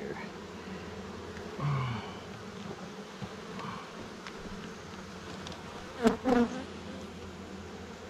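Honey bee swarm humming steadily, close to the mass of bees clustered on the comb. A sharp click and a short louder sound come about six seconds in.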